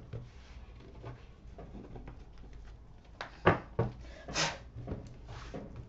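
Tarot cards handled and shuffled by hand on a cloth-covered table: soft rubbing and light taps of cards, with a few sharper clicks about three and a half seconds in and a louder short swish just after four seconds.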